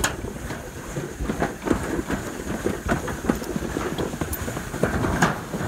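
Wheeled alpine-slide sled rattling as it runs fast down the trough, with a dense string of irregular knocks and clatters over a steady rumble.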